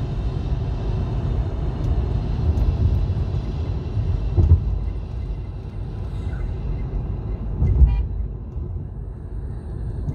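Steady low rumble of a car's road and engine noise heard from inside the cabin while driving, with two brief thumps, about four and a half and eight seconds in.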